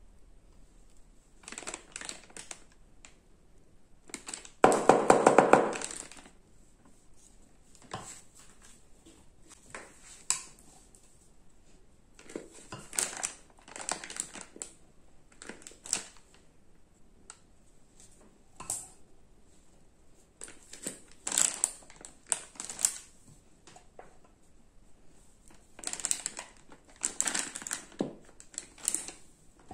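Silicone spatulas scooping thick filling out of a glass bowl and pushing it into a plastic piping bag: irregular bouts of scraping, taps on the bowl and plastic rustling. About five seconds in, a louder pitched sound lasts about a second and a half.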